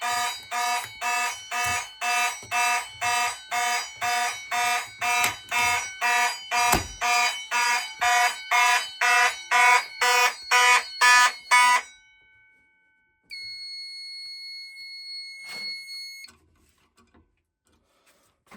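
Fire alarm horn sounding after a manual pull station is activated: a loud, evenly pulsing blast of several tones at about two and a half pulses a second, with a thump about seven seconds in. The horn stops about twelve seconds in, and a quieter steady high electronic tone follows for about three seconds.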